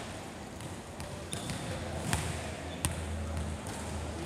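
A volleyball knocking on a hard court three times, about three-quarters of a second apart, each knock sharp and echoing in a large sports hall, over a steady low hum.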